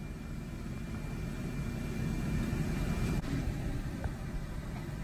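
Low, steady rumble of a van moving slowly, engine and tyre noise heard from inside the cabin.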